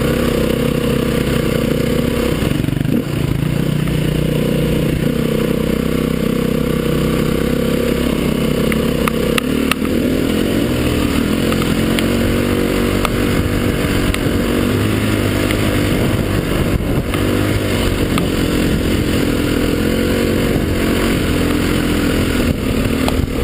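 Dirt bike engine running steadily as it is ridden along a rough dirt track, its pitch rising and falling several times with throttle and gear changes, with a few short knocks and rattles.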